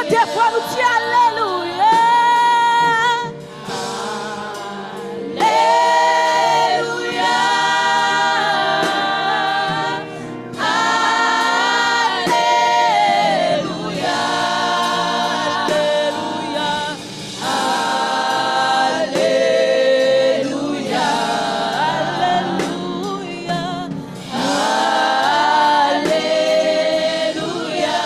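A women's vocal group sings a gospel praise song in Haitian Creole with instrumental accompaniment, in phrases of a few seconds with held notes and short breaks between them.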